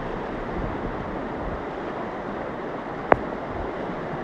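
Floodwater rushing in a steady, even roar, with one sharp click about three seconds in.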